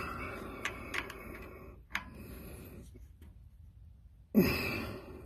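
Wrench tightening the drain bolt on a small engine's carburetor float bowl: scattered sharp metal clicks and handling noise as the bolt is snugged up.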